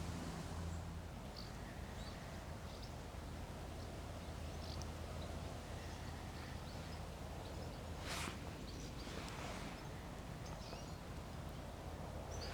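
Quiet riverside ambience: a steady low background with faint, scattered bird chirps, and a brief soft noise about eight seconds in.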